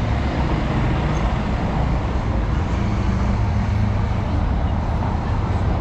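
Steady low rumble of street traffic, even and unbroken, with no single passing vehicle standing out.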